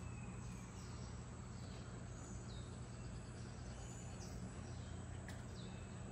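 Quiet indoor background: a steady low hum, with a few faint high chirps about two and four seconds in and a faint click about five seconds in.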